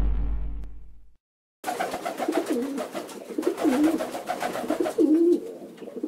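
A deep low boom dies away over the first second; after a short silence, domestic pigeons coo over and over, each coo a rolling, wavering call, over a patter of small clicks.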